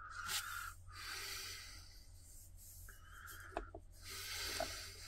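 A person's soft breathing close to the microphone, several slow breaths in and out, with a couple of faint clicks and a steady low hum underneath.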